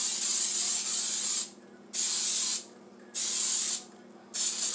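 Aerosol can of Baker's Joy flour baking spray hissing in bursts as it coats a baking pan: a long spray, two short ones, and another starting near the end.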